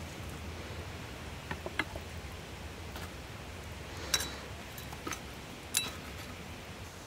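Stainless slotted skimmer clinking against a large metal cooking pan while lamb pieces are lifted and set in place: a handful of sharp metallic clinks, the loudest about four seconds in and again near six.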